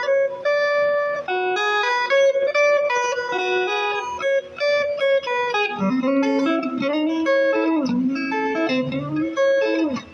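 Solo guitar picking a quick single-note melody. About halfway through, the lower notes bend up and back down.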